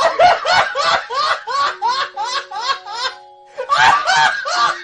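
A person laughing hard in a fast run of short, rising-pitched laughs, about five a second. The laughs pause briefly a little past three seconds, then start again. Faint held musical notes sit underneath.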